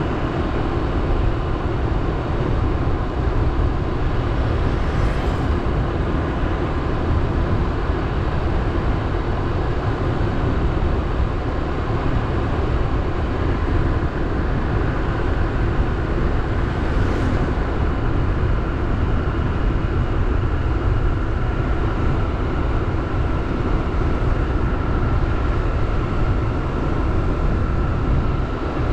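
Motorbike under way at a steady pace: an even engine drone mixed with road and air noise, unchanging throughout.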